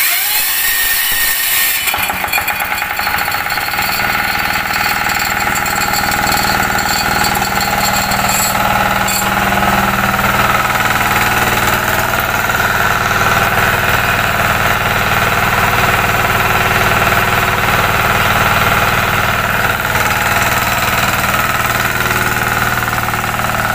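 Matsumoto MDX-178FE single-cylinder air-cooled diesel engine cranked by its electric starter, catching about two seconds in and then running steadily, driving the belt-driven air compressor pump.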